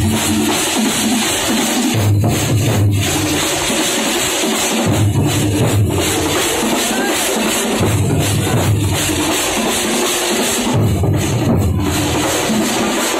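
Kerala thampola percussion troupe playing large shoulder-slung drums with sticks, a loud, dense wash of drumming. Heavy low drum strokes surge for about a second at a time, roughly every three seconds.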